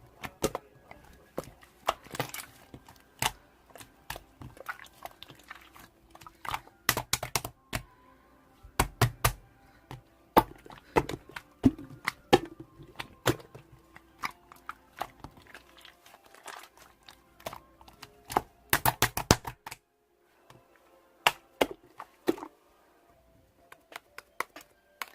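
Irregular sharp clicks and taps, some in quick runs of several strokes, with a short pause about two-thirds of the way through.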